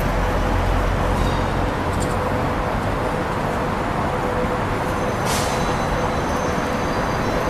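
SS8 electric locomotive pulling out of a station with its coaches, a steady running hum and rumble with a short hiss of air about five seconds in.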